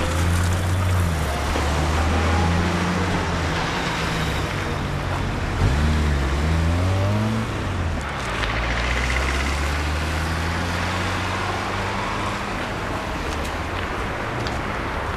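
Road traffic: the low drone of passing vehicle engines, shifting up and down in pitch about halfway through, over a steady hiss of street noise.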